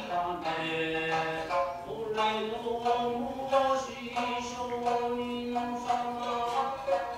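Traditional Japanese narrative chanting for a puppet play: a voice drawing out long held notes that bend slowly in pitch, with music under it.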